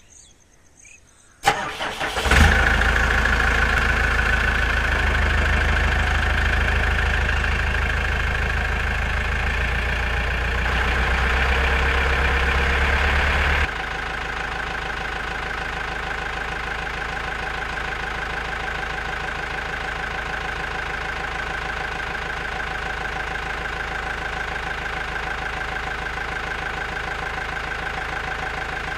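A tractor engine sound starts suddenly about a second and a half in and settles into a steady run. About halfway through it drops abruptly to a quieter, even run that carries on to the end.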